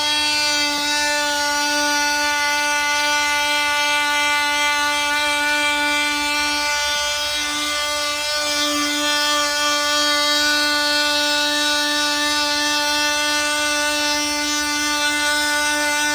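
Handheld power sanding tool running with a steady whine as it sands old sticker glue and rubber off a tire sidewall; the tone wavers briefly about seven seconds in.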